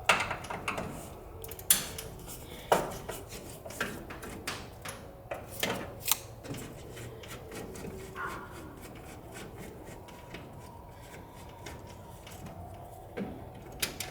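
Door handle and lock hardware being worked loose and handled: scattered light metallic clicks and clinks, with a few sharper knocks in the first half.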